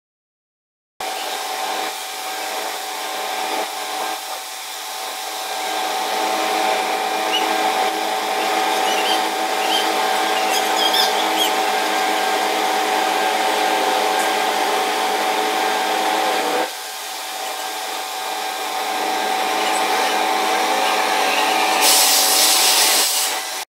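Steady mechanical whine of construction machinery running, with one held tone over it, starting abruptly about a second in and dropping in level suddenly about two-thirds through, with a hissier stretch near the end.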